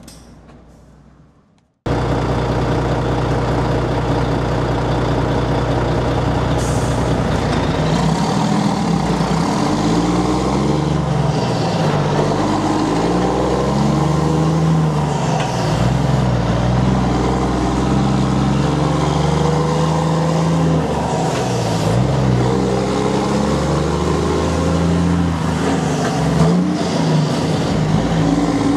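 Volvo FH12 truck's straight-six diesel running loud through an open exhaust, its pitch climbing and dropping again and again as it pulls through the gears. It cuts in suddenly about two seconds in, after a quieter sound fades away.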